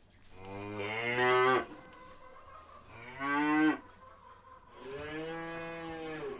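Cows mooing: three moos, the first two short and loud, the third longer, steadier and softer.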